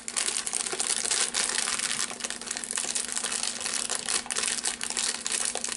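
Crinkly plastic snack packet rustling and crackling continuously as it is handled and folded.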